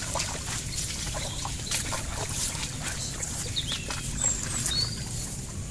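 Rice plants rustling and swishing with footsteps as people wade through a rice field, over a low steady rumble, with a few short high bird chirps in the second half.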